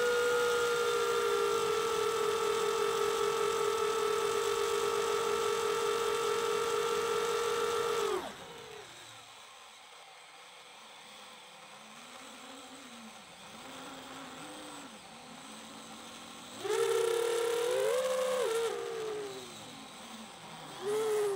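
FPV quadcopter's brushless motors whining at a steady high pitch for about eight seconds, then dropping sharply to a low, wavering hum as the throttle is cut for a dive. About seventeen seconds in the whine climbs back up, wavering in pitch, dips briefly and rises again near the end.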